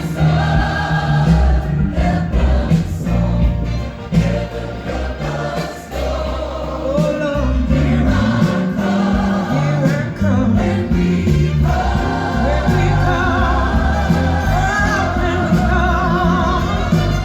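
Gospel song with a choir singing held, wavering notes over a strong bass line, played from a vinyl record on a Marantz TT-15S1 turntable through a Fluance Signature series 2.0 speaker pair.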